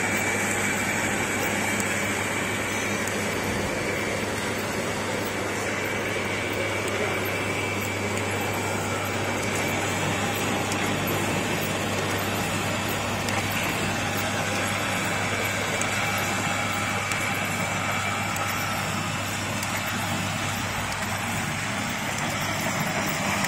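Cube paper-wrapping machine running steadily: a continuous mechanical clatter over a constant motor hum.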